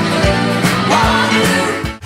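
Excerpt of a 1974 UK number-one pop single: full band music at steady loudness, cutting off abruptly near the end as the compilation splices to the next track.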